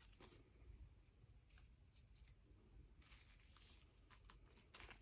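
Near silence, with faint scattered crinkles and clicks of small clear plastic bags being handled.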